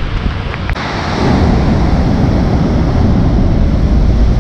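Rough sea wave breaking on the rocks: a loud rushing surge that swells about a second in and holds, after a single knock, with wind buffeting the microphone.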